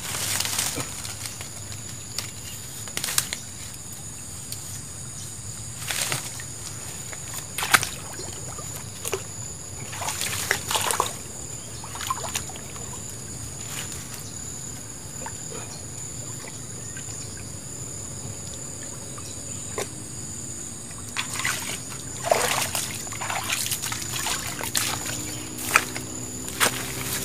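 Shallow river water splashing and sloshing in short irregular bursts as hands and a bamboo fishing rod work at the water's edge, over a steady high insect drone.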